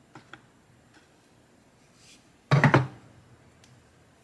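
Hammer knocks at a wooden workbench during chisel work on a small wood block: two light taps just after the start, then a quick cluster of loud knocks about two and a half seconds in.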